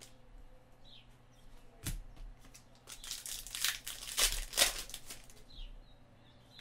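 A stack of trading cards handled and flicked through by hand: papery sliding, rustling and snapping in a few short bursts, about two, three and four and a half seconds in, the last the loudest.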